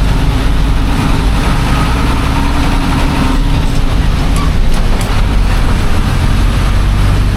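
City bus engine running with a steady low hum, heard from inside the passenger cabin.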